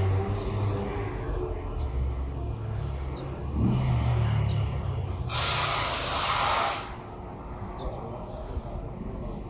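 A steady low rumble with a sudden loud hiss about five seconds in that lasts about a second and a half and cuts off sharply. A few faint, short high chirps sound now and then.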